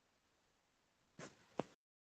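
Near silence with faint hiss, then two short clicks about a second in, the second louder, after which the audio cuts off suddenly.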